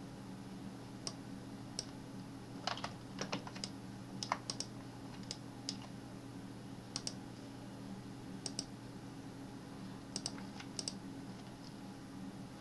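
Scattered clicks of a computer mouse and keyboard keys, single and in quick pairs, over a steady low hum.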